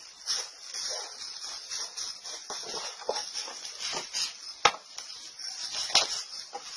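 Potting mix of soil, pine bark and charcoal sliding and rustling out of a plastic tray into a plastic pot, with gloved hands scraping in the tray. Two sharp knocks, one a little past halfway and another about a second later.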